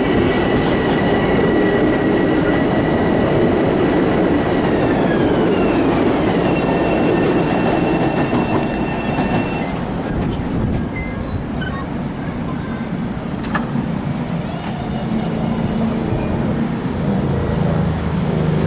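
Long Island Rail Road commuter train pulling into a station: loud, steady wheel and running noise with a high whine that drops in pitch about five seconds in as the train slows. The noise eases off around ten seconds in as it comes to a stop, and a low engine-like hum rises near the end.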